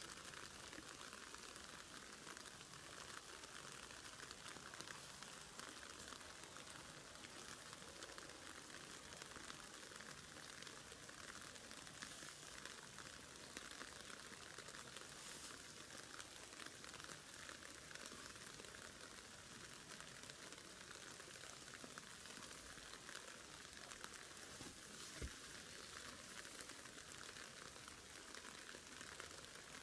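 Near silence: a faint, steady hiss with fine crackle, and a single soft tap about 25 seconds in.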